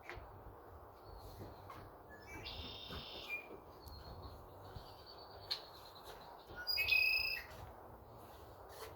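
A bird calls twice with high-pitched cries: a shorter one about two and a half seconds in, then a louder, longer one about seven seconds in. A faint thin whistle comes between them, over a low steady background hum.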